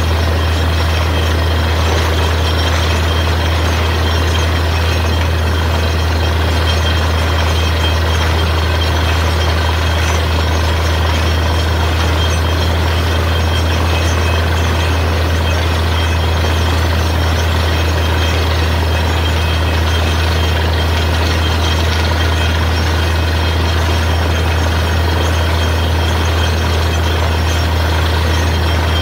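Borewell drilling rig's heavy engine running steadily, a constant deep drone with machine noise over it.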